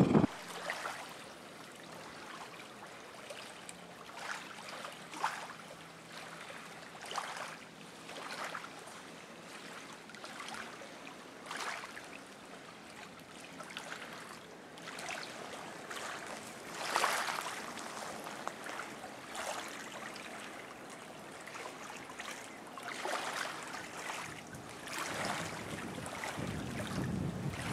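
Small waves lapping softly at the shoreline, irregular little splashes every second or two over a low, steady wash.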